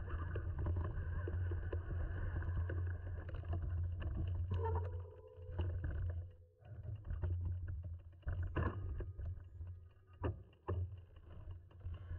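Mountain bike ridden over a rough forest singletrack, heard through a bike- or body-mounted action camera: steady wind and tyre rumble. A short squeal comes about four and a half seconds in. Sharp knocks and rattles follow in the second half as the bike goes over rocks and steps.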